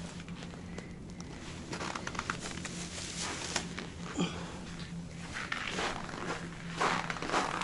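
Footsteps crunching on packed, frozen snow, sparse at first and then a quick run of louder steps in the last couple of seconds.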